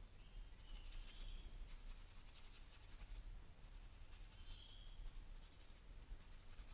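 Large no. 24 round brush loaded with thinned raw umber brushing over the painting surface, blocking in the darks of an oil underpainting. The result is faint, scratchy strokes in about four passes.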